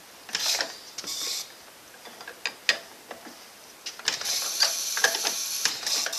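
A 1917 Ford Model T four-cylinder flathead engine being hand-cranked without catching: clicking from the crank and engine turning over, with the trembler coils buzzing in short bursts. From about four seconds in the coil buzz becomes steadier and denser.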